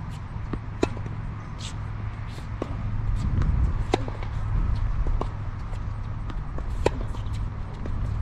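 Tennis balls on a hard court: pops of strings on ball and taps of bounces through a serve and rally, with clear hits at about one second, four seconds and seven seconds in. A low steady rumble lies under it.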